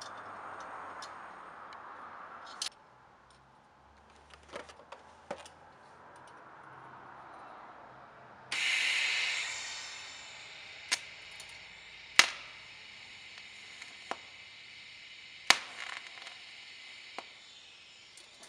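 A TIG welding arc on scrap spoon steel starts suddenly about halfway through, then settles into a steady hiss. Several sharp clicks ring out over it, two of them loud.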